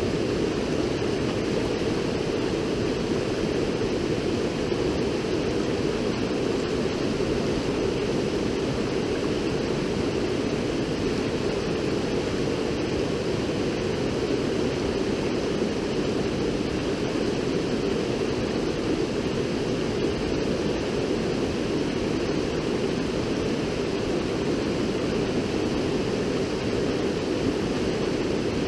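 River water rushing, a steady, unchanging low rush of flowing water.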